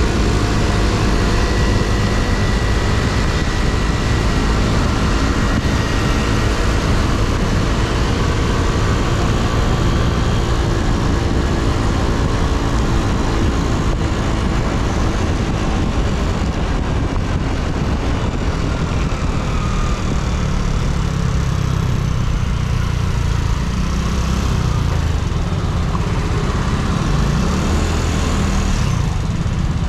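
Yamaha Cygnus X scooter's single-cylinder four-stroke engine running on the road, under a steady rush of wind and road noise. The engine note settles lower and steadier about halfway through.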